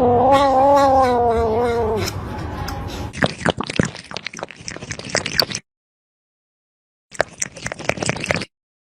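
A cat's long, wavering meow lasting about two seconds, followed by scattered clattering and rustling that cuts off abruptly to dead silence, then returns briefly near the end.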